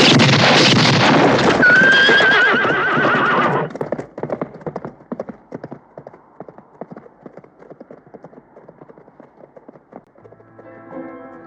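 Horses galloping hard, with one horse whinnying about two seconds in. After about three and a half seconds the hoofbeats drop to a quieter, even clip-clop that fades away, and music comes in near the end.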